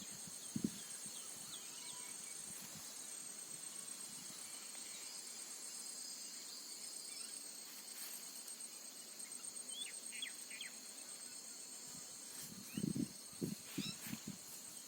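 Steady high-pitched chorus of insects trilling in farm fields, with a few soft low thumps near the end.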